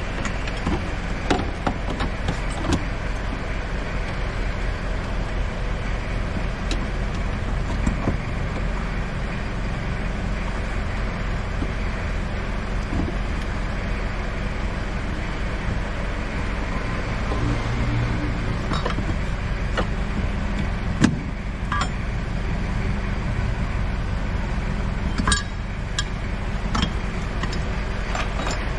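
Steady background vehicle noise, with scattered clicks and knocks from hand work on the fuel filter fittings in a diesel car's engine bay.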